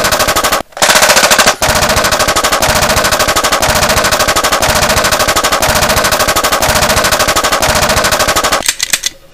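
Sustained rapid automatic machine-gun fire in long unbroken bursts, with two brief breaks in the first couple of seconds. It sputters to a stop near the end.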